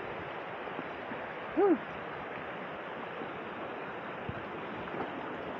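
Shallow river rushing steadily over rocks and stones. A brief vocal sound rises and falls about one and a half seconds in.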